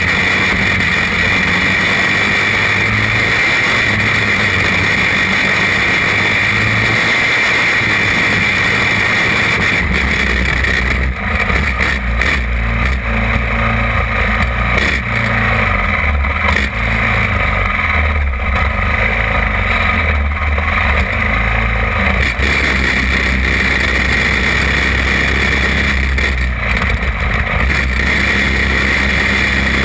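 Champ kart's small engine running at low revs, heard close up from a camera mounted on the kart; its pitch steps up about ten seconds in and back down a little after twenty.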